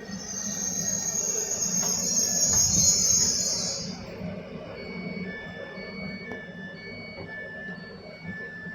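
A train at a station: a loud high-pitched squeal for about four seconds that then fades, followed by a steady run of short electronic warning beeps in two alternating pitches, about one a second, over a low rumble.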